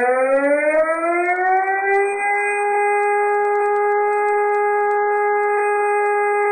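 Civil defence siren winding up: its tone rises in pitch for about the first two seconds, then holds a steady, loud, level tone.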